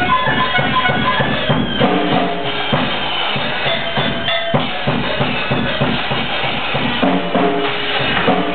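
Live band music: drums keeping a steady beat, bass drum and snare, under held melody notes.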